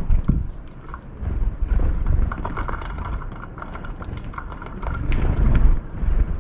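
Wind gusting across the microphone, a low rumble that swells twice, first about a second in and again near the end.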